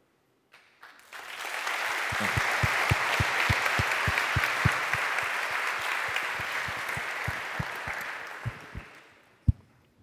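Audience applauding at the end of a talk, swelling about a second in and dying away near the end. A steady run of low thumps, about three a second, runs through the middle of it, and one sharp thump stands out near the end.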